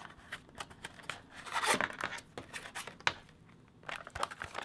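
Plastic blister pack handled, crinkling and crackling, with a louder rustle about a second and a half in and a sharp click near three seconds.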